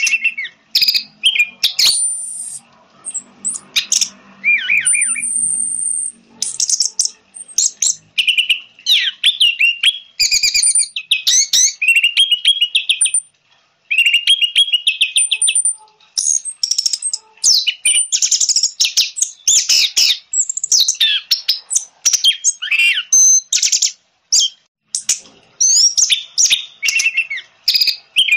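Orange-headed thrush singing a loud, fast, varied song of whistles, trills and sharp clicking notes in quick phrases with only brief pauses between them.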